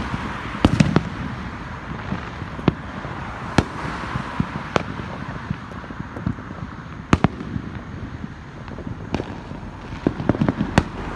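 Fireworks going off: irregular sharp bangs and pops, some close together in quick runs about a second in and near the end, over a steady background hiss.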